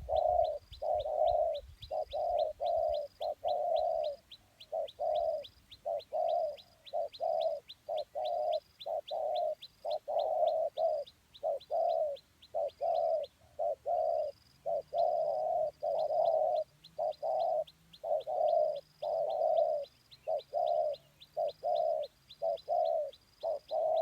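Spotted dove cooing over and over in quick, broken, stuttering runs of notes. A fast, steady high ticking of about four a second goes on under the coos.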